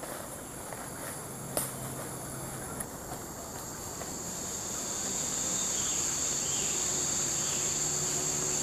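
Insects droning steadily at a high pitch, growing louder about halfway through. There is one sharp click about a second and a half in.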